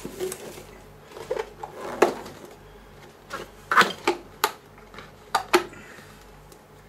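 Plastic ignition coil packs and their cardboard box and tray being handled: a scatter of short sharp clicks and knocks, most of them in the second half, as the tray is slid out and a coil pack is lifted from its row.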